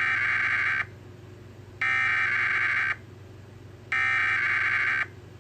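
Emergency Alert System SAME header: three bursts of digital data tones, each a little over a second long with about a second's gap between them. This is the coded header that opens a required weekly test of the alert system.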